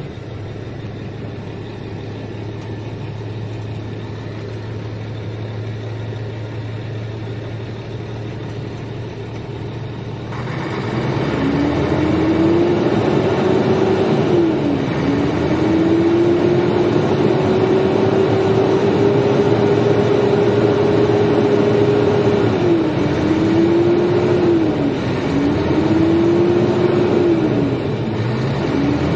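Renault Premium truck's DCi six-cylinder diesel engine, just started, idling steadily for about ten seconds. It is then revved repeatedly: about five times the pitch climbs to high revs, holds, and drops back, as the engine is run up to check the fuel lift pump. Heard from inside the cab.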